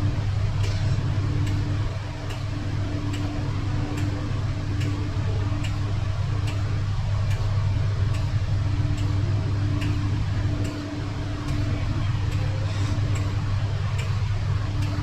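Steady low mechanical hum with a higher tone cutting in and out and a sharp regular tick a little under twice a second, as from a running motor or fan.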